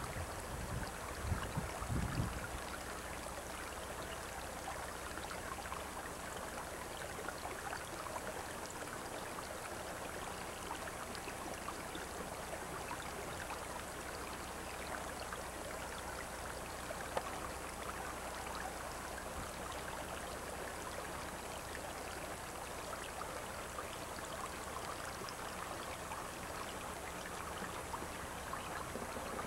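Steady rushing of a creek running over rocks, with a few low wind buffets on the microphone in the first couple of seconds.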